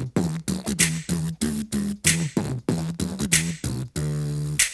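Human beatbox groove: short pitched bass-like vocal notes in a steady rhythm, punctuated about every second and a quarter by a sharp hissing snare sound, with one longer held note near the end.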